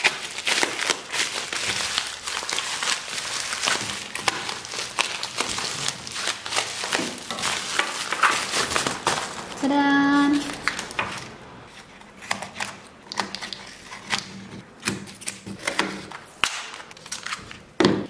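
Bubble wrap crinkling and crackling as it is snipped with scissors and pulled off a small parcel, full of small clicks; about ten seconds in, a brief steady pitched tone about a second long, then quieter rustling and light taps as small cardboard boxes are handled and set down.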